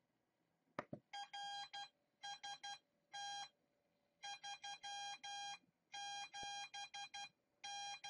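Arduino sending Morse code as a keyed beep tone, spelling out the ham radio signal report 'RST 379' in short and long elements grouped into letters and numbers. A single click comes just before the first beep.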